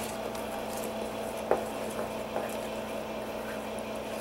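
A spatula stirring flour batter in a stainless steel bowl, with soft scraping and a couple of light knocks against the bowl, the sharpest about a second and a half in, over a steady low hum.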